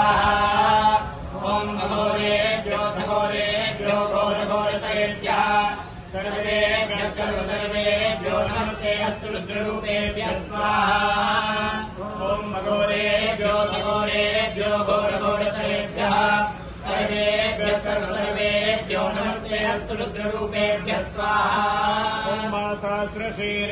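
Sanskrit Vedic mantras chanted in a continuous, unbroken recitation, over a steady low hum.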